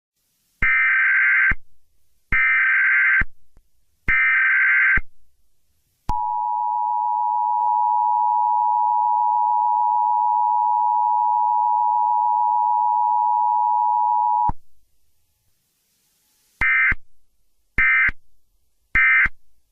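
Emergency Alert System tones. Three SAME data header bursts, each just under a second, come first. Then the two-tone attention signal holds steady for about eight seconds, followed by three much shorter data bursts.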